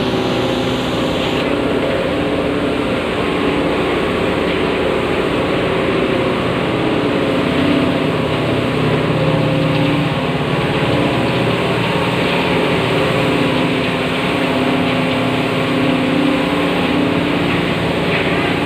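Coal washery machinery running: a loud, steady industrial drone with several steady hums under a dense rushing noise.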